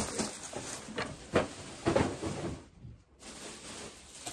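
Thin plastic shopping bag rustling and crinkling in short, irregular snatches as items are pulled out of it, with a few light knocks of packaged goods. It goes quieter about three seconds in.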